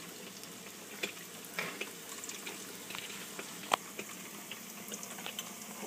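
Battered Twinkies frying in hot deep-fryer oil: a steady sizzle with scattered crackles. There is a single sharp click about two-thirds of the way through.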